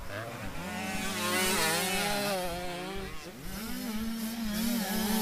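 Several small youth motocross bikes racing together, their engines revving up and down with pitches that rise and fall against one another as the riders take jumps and corners.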